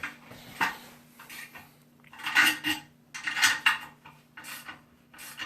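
Flat ratchet clicking in short bursts of metal clatter, about five strokes, as it tightens nuts on toilet tank-to-bowl bolts to squeeze the rubber washers into a seal.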